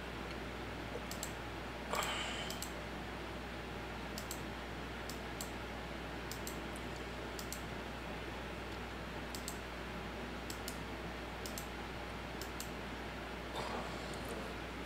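Scattered single clicks of a computer mouse and keyboard, about one a second, over a steady low hum. A short, louder noise comes about two seconds in and another near the end.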